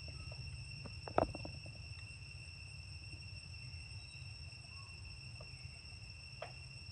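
Steady, high insect drone, like crickets, with a cluster of sharp knocks about a second in and one smaller knock near the end.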